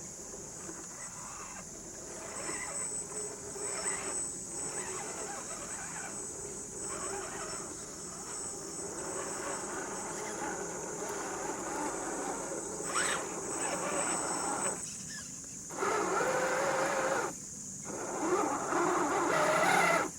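Small RC crawler's electric motor and gearbox whining as it drives through mud, cutting out briefly twice near the end and running louder in the last few seconds. A steady high-pitched tone runs underneath.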